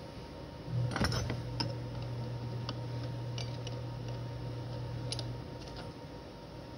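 Light metallic clicks and clinks of wrenches and a cutter bit as a bit is fitted into a CNC router spindle's collet. A steady low hum starts about a second in and stops near the end.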